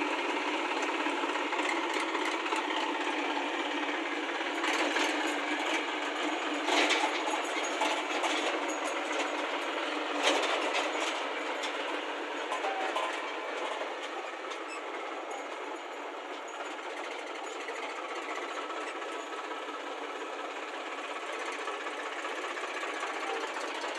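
Diesel engines of a Massey Ferguson 7250 DI tractor and a JCB backhoe loader running steadily, with sharp knocks about 7 and 10 seconds in.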